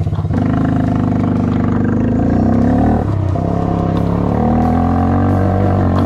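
Mini quad's small engine goes from a pulsing idle to revving just after the start as the quad pulls away on its snowmobile track, the pitch climbing; the revs dip briefly about three seconds in, then climb again.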